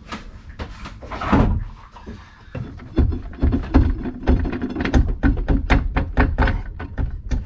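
A quick run of metal knocks and clunks as a sailboat's marine transmission is worked loose and pulled off the back of the engine. They grow thicker and faster from about two and a half seconds in.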